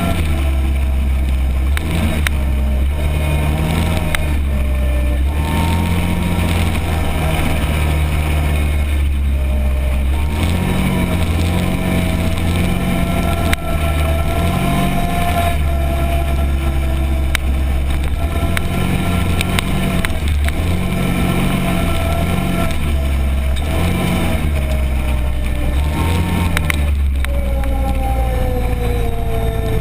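Arctic Cat Prowler 1000 UTV's V-twin engine running under way. Its revs rise and fall again and again as it drives, with a thinner whine above the engine.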